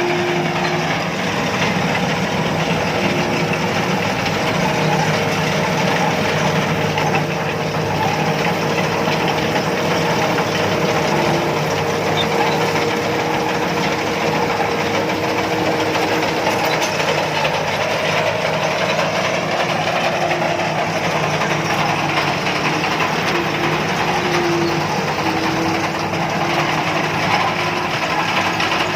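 Rice combine harvester running steadily, its engine and machinery making a continuous drone with a few held tones.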